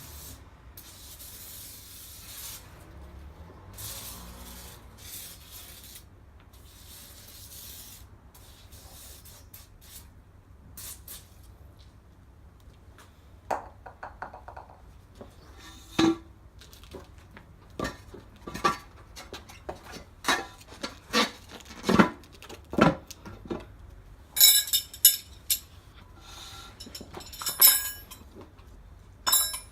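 Bursts of hissing and rubbing, then from about halfway a run of sharp clanks and knocks that grow louder and closer together near the end: tools working a tyre on a wheel rim.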